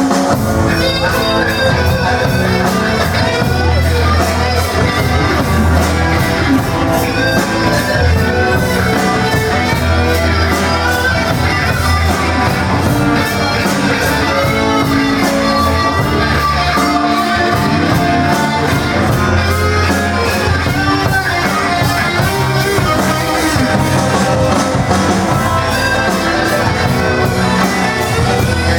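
Instrumental break of a rock song: guitar lead over bass and a steady drum beat, with no singing.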